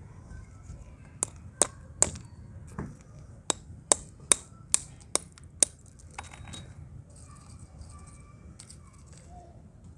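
Metal pestle pounding chunks of fired clay pot in a small stone mortar. About ten sharp clinking strikes come roughly two or three a second, starting about a second in and stopping near the middle, followed by soft gritty rustling as the crushed pieces are handled.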